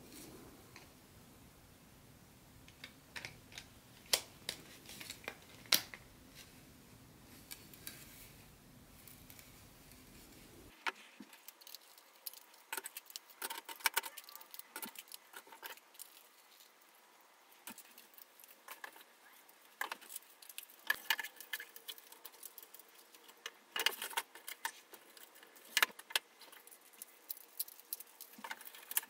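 Plastic-roadbed HO-scale model railway track sections clicking and clattering as they are handled and snapped together, in scattered sharp clicks. A faint low hum under them drops out about eleven seconds in.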